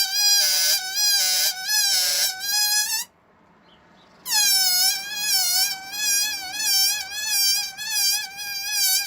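Air escaping from a rubber balloon through its stretched neck, making a high-pitched, wavering squeal. It stops about three seconds in and starts again about a second later.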